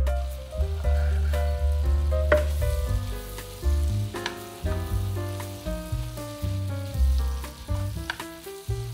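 Food sizzling and frying in a pan, with a few light clicks, under steady background piano music with a bass line.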